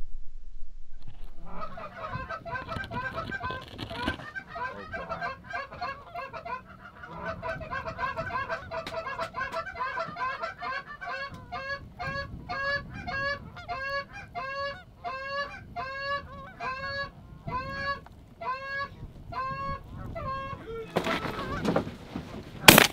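Canada geese honking over the decoys, many calls overlapping at first, then settling into a steady run of about two honks a second. A single loud shotgun shot comes right at the end.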